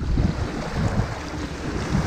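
Ocean waves breaking on a pebble beach: a heavy, steady rush of surf that swells sharply right at the start, with wind rumbling on the microphone.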